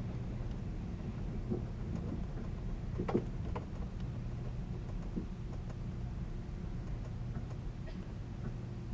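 Inside a 583-series sleeper train car, over the motor bogie, while the train runs slowly: a steady low rumble and hum, with a few short sharp clicks and knocks, the loudest about three seconds in.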